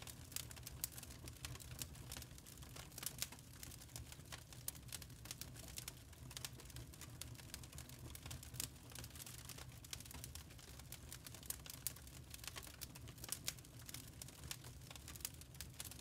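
Faint sound of lump charcoal burning, crackling with many small irregular ticks and pops, several a second, over a low steady rumble.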